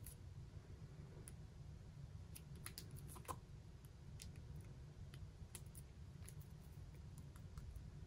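Faint, scattered small clicks and light rubbing from fingers and nails handling a mechanical pencil while winding a pink grip tape around its barrel, over a low steady room hum; one click about three seconds in stands out.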